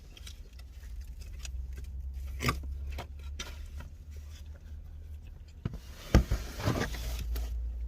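Eating and takeout-food handling sounds: a few sharp clicks and scrapes of utensil and container, the loudest about six seconds in, followed by a short rustle, over a steady low hum.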